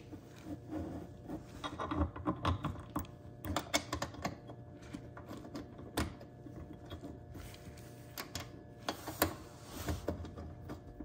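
Irregular small clicks and knocks of a metal mud-flap bracket, washer and screw being handled and fitted against the fender liner, with a screwdriver starting to turn the screw near the end.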